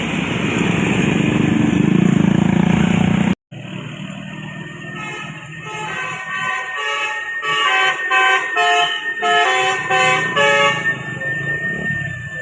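Loud vehicle noise that cuts off suddenly about three seconds in, then a bus's telolet musical multi-tone horn plays a quick tune of short stepped notes for about six seconds.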